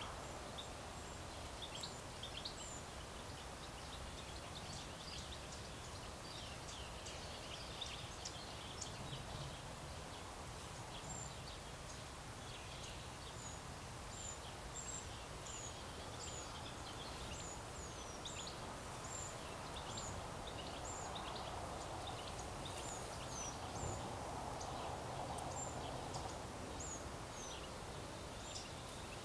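Small songbirds chirping in the background, with many short, high notes scattered throughout, over a steady low hum of distant city noise.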